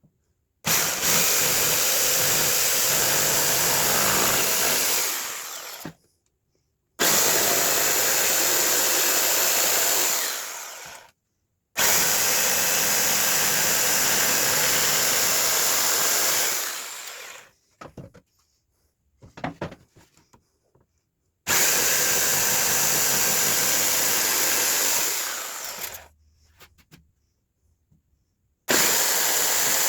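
Electric power saw cutting wooden fence-picket boards, running in five bursts of about four to five seconds, each fading away at its end. Abrupt silent gaps lie between the bursts, with a few light knocks in one gap.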